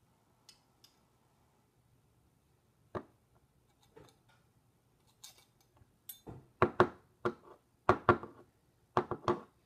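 Metal clinks and taps from a garlic press and a knife used to cut Play-Doh strands off it. A few faint ticks and one tap about three seconds in, then a quick run of sharp clinks through the second half.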